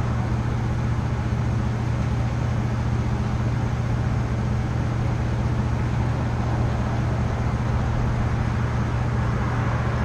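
Coin-operated gas-station air compressor running with a steady low hum while a car tire is filled through the hose chuck.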